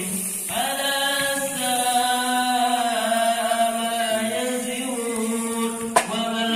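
A vocal chant with long, slowly moving held notes. A single sharp click about six seconds in.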